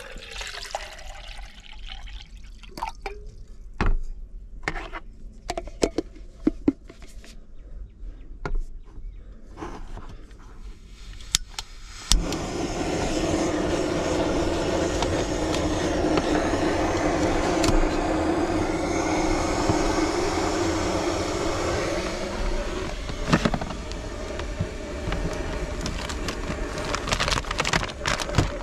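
Jetboil canister gas stove lighting: a few sharp igniter clicks about twelve seconds in, then the burner catches with a sudden steady rushing hiss that runs on, heating water. Before that, the tail of water being poured into the stove's cup, and clinks and knocks as the pot and bottle are handled.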